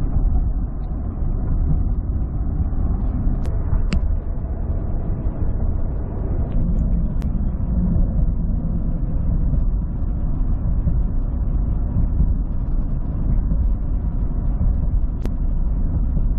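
Steady low road and engine rumble of a moving vehicle, heard from inside the vehicle, with a few faint clicks.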